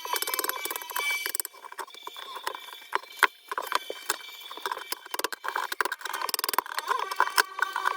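Old carpet being pulled and scraped up from an RV floor: irregular scraping and clicking, with a sharp knock about three seconds in. A ringing tone stops about a second and a half in.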